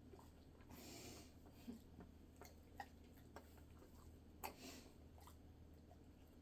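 Quiet eating sounds from a dog being fed with chopsticks: faint scattered clicks and chewing, with two short, louder noisy bursts about a second in and again about four and a half seconds in.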